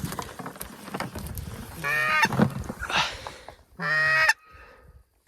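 Two loud goose honks, each about half a second long and about two seconds apart, over sloshing water from wading through the marsh.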